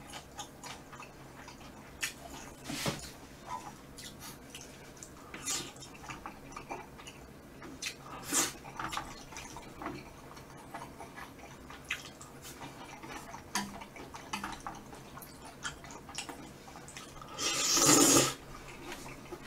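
Wet chewing and mouth sounds with scattered clicks of wooden chopsticks against a metal pan, then one loud slurp of flat glass noodles near the end.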